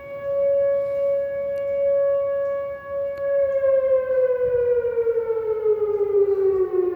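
Whelen WPS 2906 electronic outdoor warning siren sounding a steady tone. About three seconds in, its pitch starts gliding down as the signal winds down.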